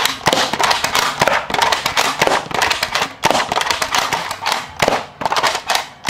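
Toy foam-dart blaster firing suction-tipped darts in quick succession: a fast, irregular run of sharp clicks and pops as darts are shot and slap against a cardboard box.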